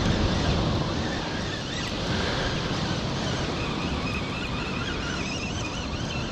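Wind buffeting the microphone over the wash of ocean water and surf: a steady rushing noise.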